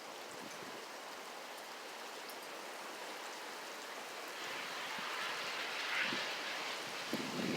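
Wind blowing hard outdoors in a snowstorm, a steady hiss that swells into a stronger gust about five to six seconds in.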